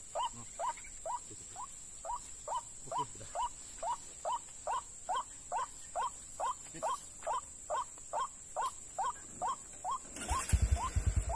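White-breasted waterhen (ruak-ruak) calling: short, rising notes repeated evenly at about two a second. Near the end a motorcycle engine starts and runs, louder than the calls.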